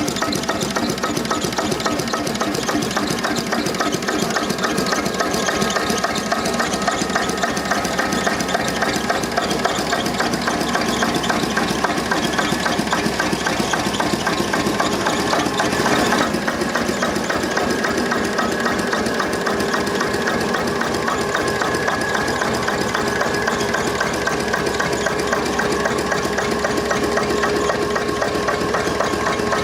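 An old engine running steadily with a fast, even firing beat. A single sharp click about halfway through.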